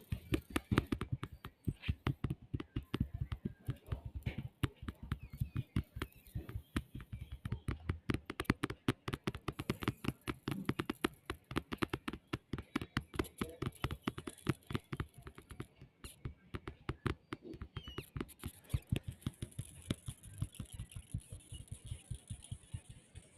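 A young boy making rapid, uneven clicking and popping noises, several a second, like beatboxing.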